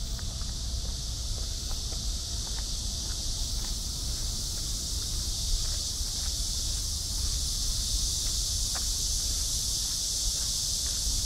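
Steady, high-pitched insect chorus, with a low rumble underneath and faint clicks of footsteps now and then.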